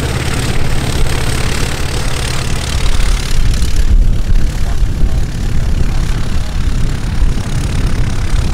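Piston engines of light propeller-driven homebuilt aircraft running steadily at low taxi power, a continuous low rumble with a wide hiss over it.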